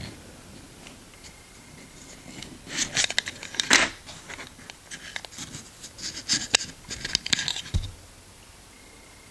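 The small file of a Victorinox SwissCard being slid out of its slot in the plastic card, with scraping and clicking in two short bouts and a dull knock near the end.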